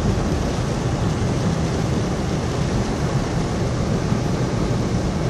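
Steady rumble and rush of a car driving through floodwater, heard from inside the cabin.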